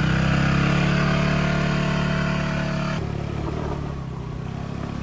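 Motorbike engine pulling hard up a steep climb, running at steady revs. About three seconds in it drops abruptly to a lower, quieter running sound.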